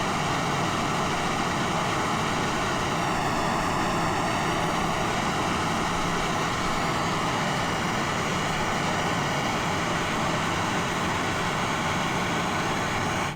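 Handheld gas torch burning with a steady roar as it heats the cracked part for aluminium brazing; the flame cuts off abruptly at the end.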